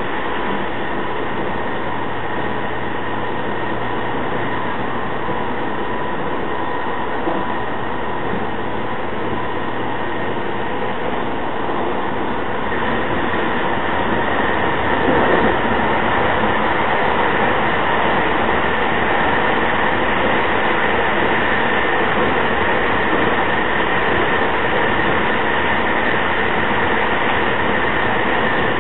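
E217 series electric train running between stations, heard from inside the car: a steady rumble of wheels and running gear with a thin steady tone over it. It grows a little louder about halfway through.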